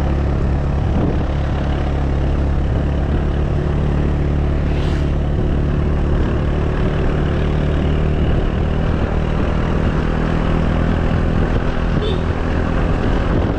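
Small motorcycle engine running at a steady speed, its pitch holding level.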